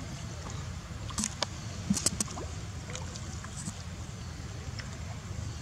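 Steady low wind rumble on the microphone, with a few short splashes and rustles about one to two and a half seconds in from macaques swimming and moving at the water's edge.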